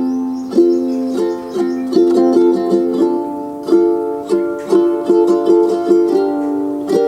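Background music: a bright plucked-string instrumental, notes picked in quick succession over held chords.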